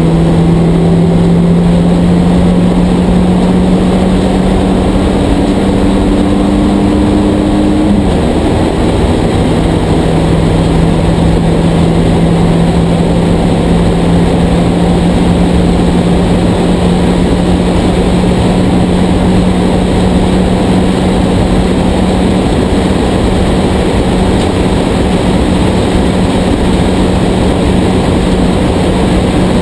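Porsche 944 Spec race car's four-cylinder engine at high revs, heard from inside the cockpit under heavy wind and road noise. The engine note climbs slowly, drops in pitch once about eight seconds in, then holds steady.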